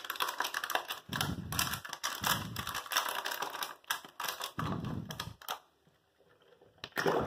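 A stack of disposable plastic cups pumped like a plunger over a clogged bathroom sink drain: plastic crackling and clicking throughout, with three heavier pushes, then a short pause and one more brief sound near the end. The pumping is forcing out a blockage (hair and dirt) in the sink's trap.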